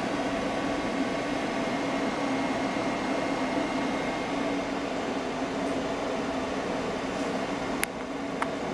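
Wanhao Duplicator 8 LCD resin 3D printer running steadily with a mechanical hum while it prints its first layer. A sharp click comes about eight seconds in, and a fainter one just after.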